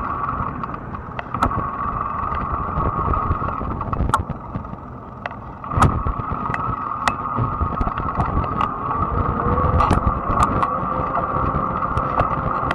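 Fat-tire electric bike being ridden: a steady whine from its motor over low tyre and road rumble, with scattered sharp clicks and knocks from bumps, the loudest about six seconds in.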